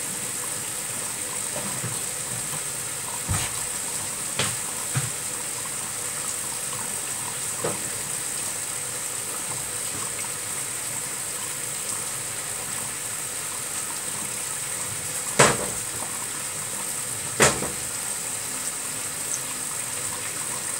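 Scattered clinks and knocks of an aluminium saucepan and a spatula against a wire-mesh strainer as thick béchamel sauce is poured and worked through it, with two louder knocks a little past the middle. A steady hiss runs underneath.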